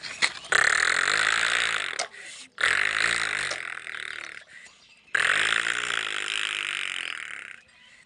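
A person imitating a tractor engine with the mouth while the toy is pulled: three long buzzing bursts of about two seconds each, their pitch rising and then falling.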